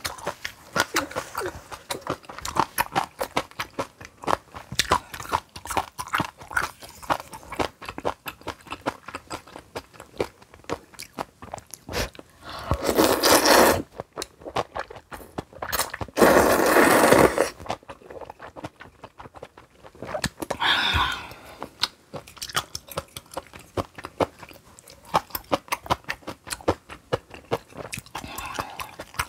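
Close-miked eating: wet chewing and crunching of kimchi and noodles, a dense run of small mouth clicks. Two louder, longer slurps come around the middle, with a shorter one a few seconds later.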